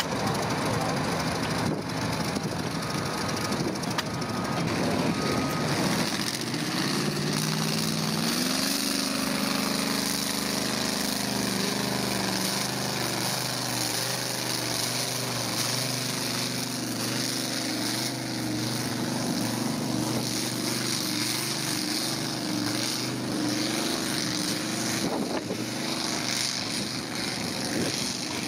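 Engine of a modified pulling tractor working hard as it drags a weight-transfer sled. After a loud, noisy start its note climbs sharply about eight seconds in, then holds high and steady at full revs.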